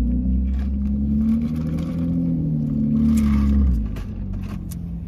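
Car engine accelerating, a loud low rumble whose pitch wavers up and down, dying away about four seconds in.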